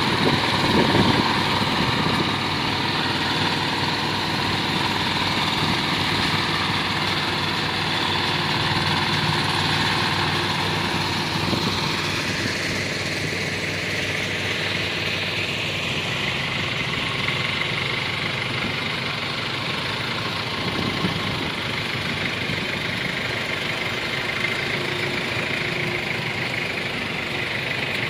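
Diesel engines of heavy transport trucks running steadily at low speed, a continuous drone whose tone changes about halfway through.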